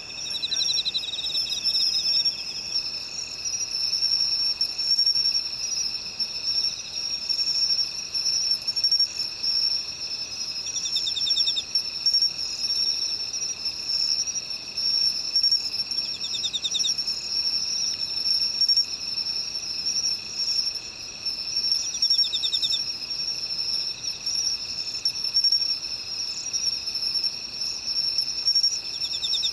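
Field insects chorusing: a steady, high, shrill drone with a second lower steady tone beneath it, and a short pulsed trill that repeats about every five or six seconds.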